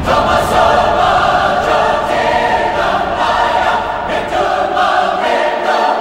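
Background music with a choir singing sustained chords.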